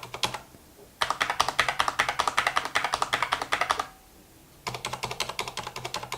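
Mechanical keyboard being typed on in quick runs of rapid keystrokes: a short run that stops just after the start, a long run of about three seconds beginning about a second in, and another run starting over a second before the end.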